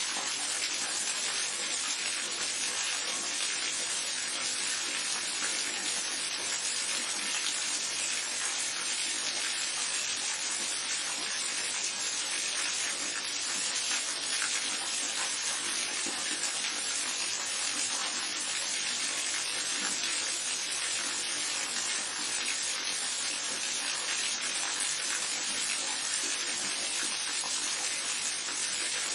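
Waterfall and babbling brook running steadily, an even rush of water with no breaks.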